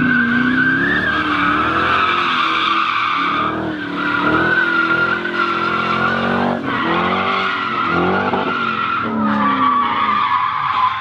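A car drifting: its tyres screech in one long, unbroken squeal while the engine revs rise and fall again and again.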